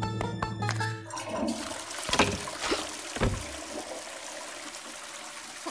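A few notes of music, then a toilet flushing from about a second in: a steady rush of water with a few louder surges.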